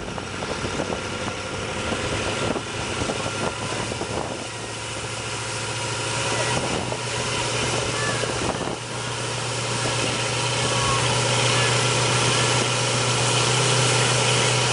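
Pickup truck engines pulling hard against each other in a tug of war. The engine note builds over the first several seconds and then holds loud and steady at high revs, while the Ford F350's rear tyres spin on the pavement.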